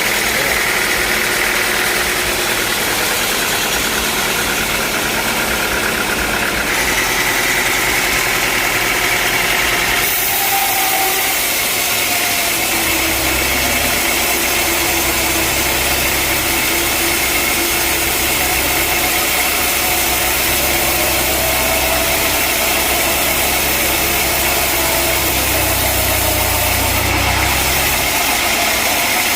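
Sawmill engine running steadily with a constant mechanical din, with abrupt shifts in tone about 7 and 10 seconds in and a low hum added from about 12 seconds in.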